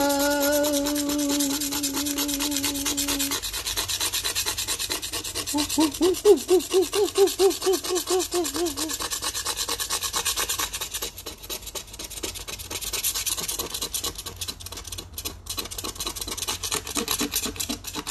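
Dried paint being scraped off with quick, rapid rasping strokes, the surface wetted to loosen the paint. A held pitched tone sounds over the first three seconds, and a run of loud warbling pitched squeals comes in the middle.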